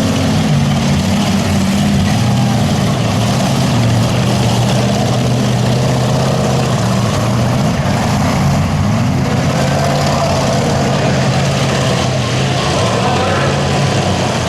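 Demolition derby cars' engines running loud and steady, with no sharp crashes.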